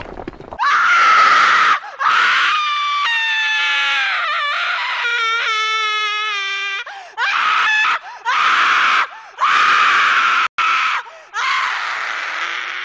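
A string of loud, harsh screams with short breaks between them; a long one in the middle wavers and slides down in pitch.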